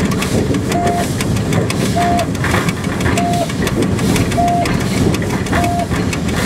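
Cab ride on the JNR C62 3 steam locomotive moving slowly: a steady rumble and rattle from the engine and wheels, with scattered knocks. A short beeping tone repeats a little less than once a second.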